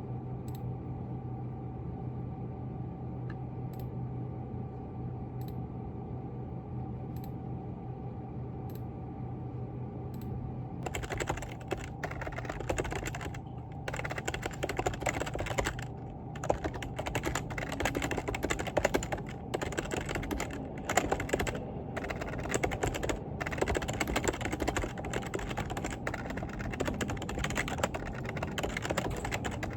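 Typing on a computer keyboard: quick, irregular key clicks that start about a third of the way in and continue with brief pauses, over a steady low hum. Before the typing there is only the hum with a few faint clicks.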